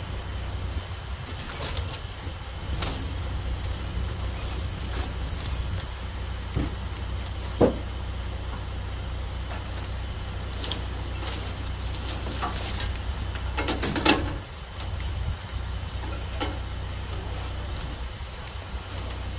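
Dry vines crackling and snapping as they are torn by hand off an old tractor, with a sharp snap about eight seconds in and a louder crackling burst near fourteen seconds, over a steady low rumble.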